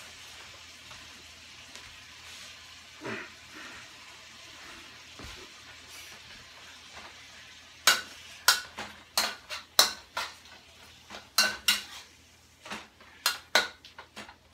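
Cured pork sizzling as it fries in a wok. From about eight seconds in, a spatula scrapes and clacks against the wok about twice a second as the meat is stir-fried.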